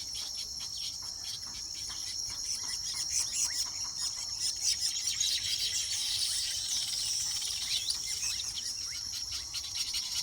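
A weaver bird colony chattering: many short chirps and buzzy calls over a steady high-pitched drone.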